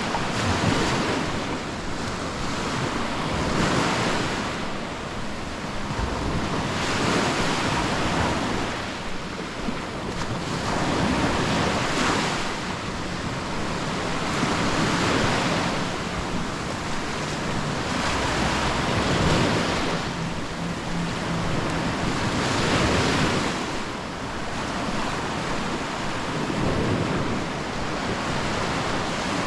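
Small sea waves breaking and washing up on the beach, swelling every three to four seconds, with wind buffeting the microphone.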